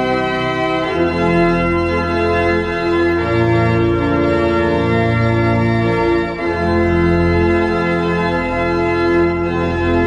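Church organ playing slow, sustained chords, the bass notes changing every couple of seconds.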